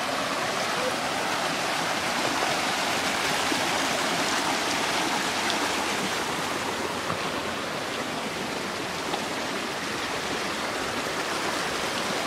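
Steady rush of a creek running over rocks.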